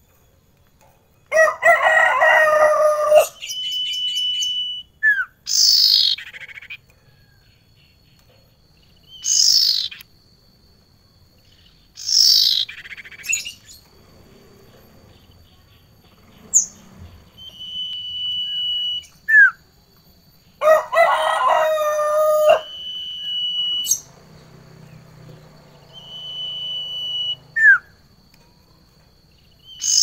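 Caged ioras (sirtu and cipoh) calling: sharp whistles that slide down in pitch, alternating with long, level, high whistles about a second each, repeated many times. Twice a louder, harsh call about two seconds long breaks in.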